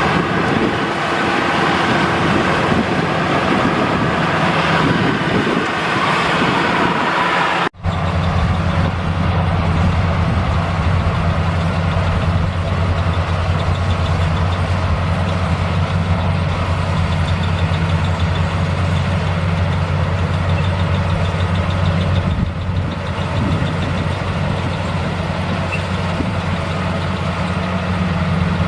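Maxxi Bimo 102 rice combine harvester running steadily, with a continuous engine drone and mechanical noise. It breaks off for an instant about eight seconds in, and after that a deep, even engine hum is strongest.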